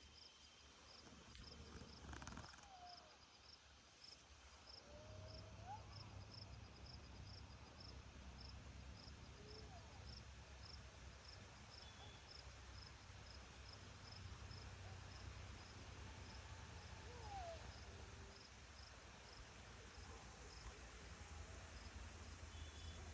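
Faint insect chirping, a steady high pulse repeating about twice a second, over a low rumble. A few faint short calls glide up or down in pitch now and then.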